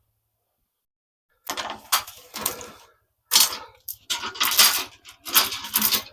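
Irregular metallic clinking and rattling in quick bursts, starting about a second and a half in, over the low hum of an idling engine.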